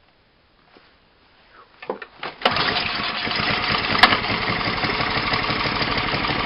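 Snowblower's small engine starting: a few sputters, then it catches about two and a half seconds in and runs steadily. A sharp click comes about four seconds in.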